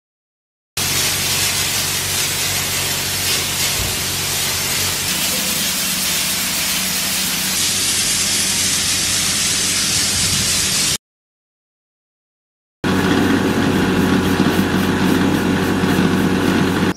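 Compressed-air paint spray gun hissing steadily over the steady hum of a portable piston air compressor, in two long stretches separated by about two seconds of silence.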